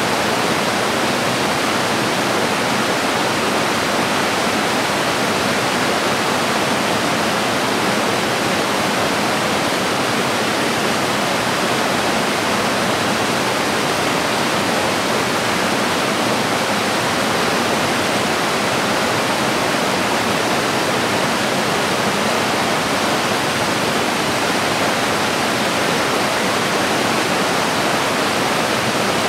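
Woodland stream tumbling over a rocky cascade: a steady, loud rush of falling water.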